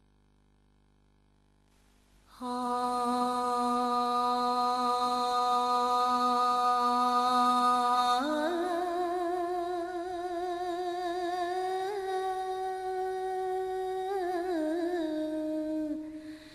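Near silence for about two seconds, then a solo voice sings a slow, drawn-out melody. It holds one long low note, steps up about midway to a higher note with a wavering vibrato and small ornamental turns, and settles lower near the end.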